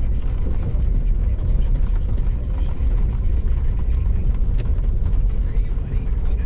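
Off-road vehicle driving over a rough dirt trail, heard from inside the cabin: a steady low rumble of tyres and suspension over gravel, with small rattles and knocks from the body.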